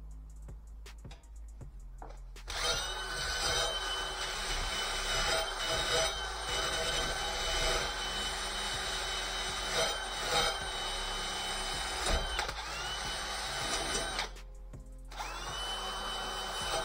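Drill spinning a wire cup brush against the rusty steel backing plate of a drum brake, scrubbing off rust. It starts about two seconds in and runs steadily with a high whine, stops for about a second near the end, then starts again.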